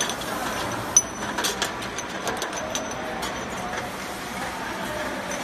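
Bottle labeling machine line running: a steady machine noise with irregular clicks and clinks as the glass bottles knock along the conveyor, busiest in the first few seconds.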